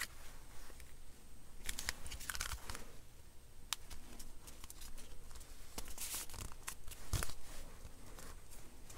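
Paper and card rustling and scraping in short bursts as layered sheets are handled and shifted, with a light knock about seven seconds in.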